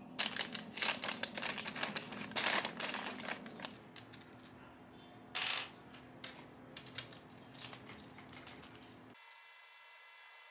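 Close handling noise: a quick run of rustles and light clicks for about four seconds, then a short louder swish about five seconds in and a few scattered ticks. It gives way abruptly to a faint steady hum near the end.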